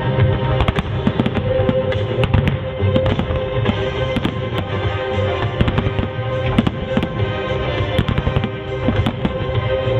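Fireworks going off in many sharp bangs in quick succession, over loud music played with the display.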